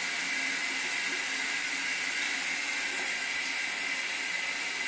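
Shower water running: a steady, even hiss of spray.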